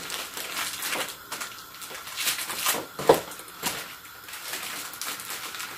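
Light clicks and knocks of dry spaghetti and its packaging being handled over a pot of boiling water, with a sharper knock about three seconds in.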